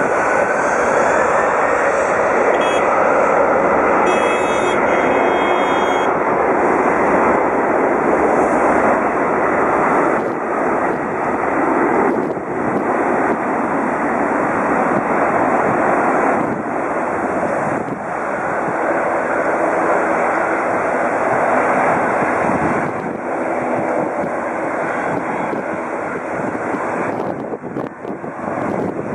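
Boeing 767-300ER's twin jet engines running at high power close by: loud, steady jet noise, with a whine that rises in pitch near the start and noise that eases off toward the end.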